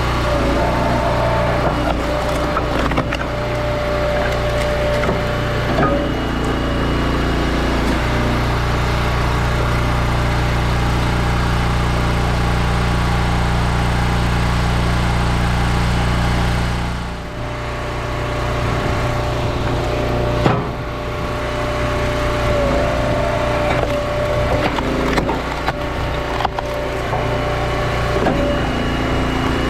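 Small-engine log splitter running steadily while splitting hickory rounds, with wood cracking and splintering as the wedge goes through. The engine note gets heavier under load for several seconds, drops off sharply partway through, and a sharp knock follows a few seconds later.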